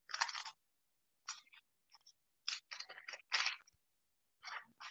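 Choppy, broken-up audio of a voice over a video call: short irregular snatches of sound cut off by dead silence between them, as the connection or microphone drops in and out.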